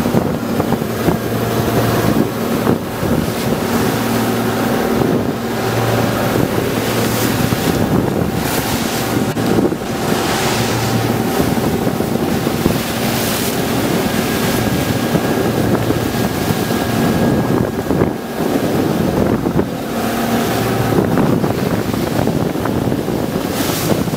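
Small fishing boat under way at sea: wind buffeting the microphone and water rushing along the hull, with the boat's engine running steadily underneath.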